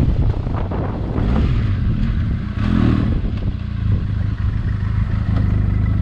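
Benelli TRK 502X's 500cc parallel-twin engine running at low revs as the bike slows and comes to a stop, settling into a steady idle. Wind noise on the microphone dies away about a second and a half in.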